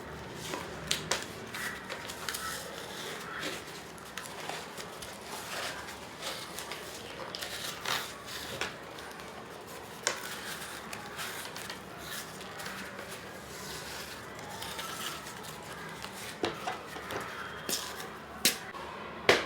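Scattered small clicks, taps and rustles of hands and tools working paper and clay on a sculpture, with sharper clicks about ten seconds in and near the end.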